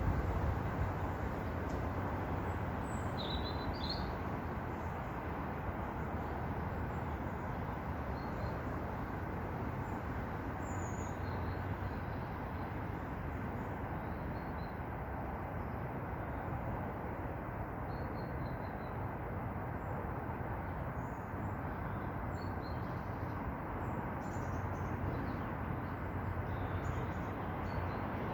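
Steady low outdoor rumble, with faint short bird chirps scattered throughout.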